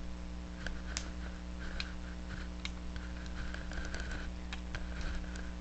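Scattered light clicks and taps, irregularly spaced, over a steady low electrical hum.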